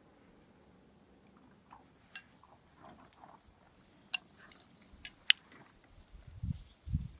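Eating sounds: quiet chewing with a few sharp clicks of utensils on a dish from about two seconds in, and soft low thumps near the end.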